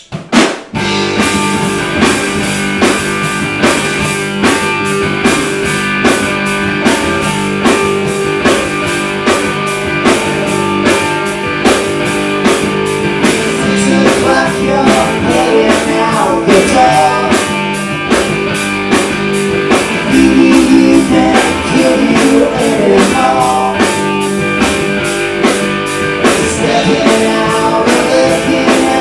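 Live rock band of electric guitar, bass guitar and drum kit kicking in together under a second in and playing a song loud, with a steady drum beat.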